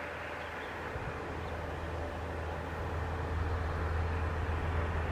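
Jet engine rumble from an Airbus A380's four engines as it climbs out after take-off: a steady low rumble that grows slowly louder.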